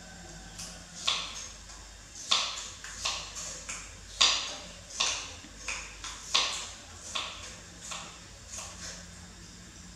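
Kitchen knife dicing carrot on a round wooden chopping board: sharp, irregular knocks of the blade on the wood, about two a second, starting about a second in and stopping near the end.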